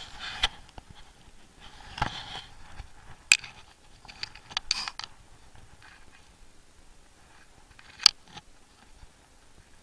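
Clothing rustling and about five sharp clicks and knocks from handling a freshly caught tench, close to the microphone. The loudest clicks come about three seconds in and near the end.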